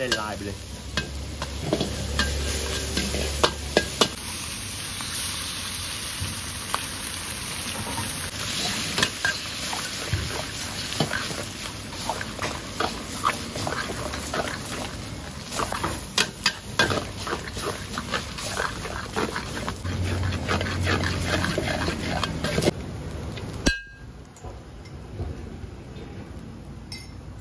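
Minced pork and egg sizzling in a hot wok, with a metal spatula repeatedly scraping and clanking against the wok as it is stir-fried. About 24 s in the sizzle drops away suddenly and it goes much quieter.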